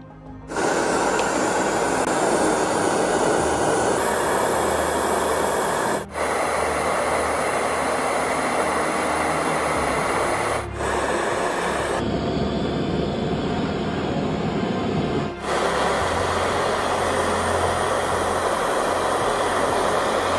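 Gas torch flame giving a steady, loud rushing hiss as it melts a small piece of gold into a molten bead. The hiss drops out briefly and changes tone abruptly a few times where takes are cut together.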